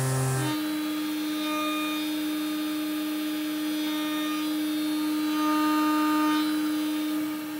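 Tormach CNC mill's spindle running a half-inch chamfer mill at 8,000 RPM as it cuts the outside chamfers of a metal part, a steady whine whose pitch steps up slightly about half a second in.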